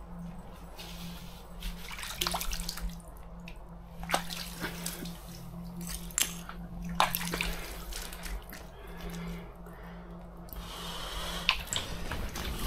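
Water splashing and dripping as hands dip into and rinse in the open water of an ice-fishing hole, with scattered small knocks and a steady low hum underneath.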